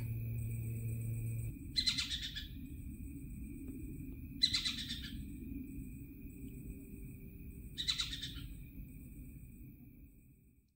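A bird calling three times, a short call about every three seconds, over a faint steady high tone and low rumble, fading out at the end.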